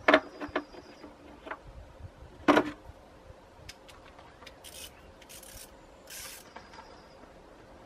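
Hand tools working on the mower's bolts: a few sharp metal knocks and clinks, the loudest about two and a half seconds in, then three short rasping strokes near the end.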